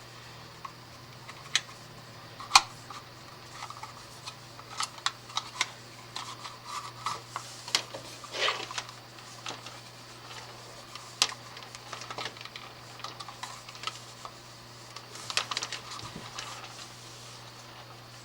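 Irregular small clicks, taps and short rustles of a wire and small plastic electrical-box parts being handled, over a faint steady low hum.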